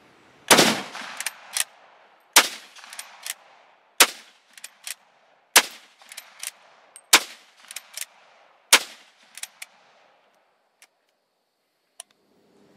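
Six rifle shots from a Swiss Schmidt-Rubin straight-pull 7.5 mm rifle, one about every second and a half, with quick metallic clacks of the straight-pull bolt being cycled between shots. After the last shot come two faint clicks near the end.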